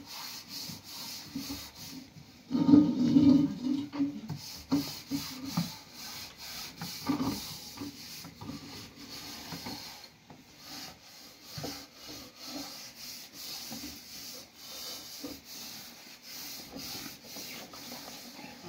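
Thin wooden rolling pins rolling out flatbread dough on a flour-dusted cloth: a steady run of soft rubbing strokes and light wooden clicks, louder for a moment about three seconds in.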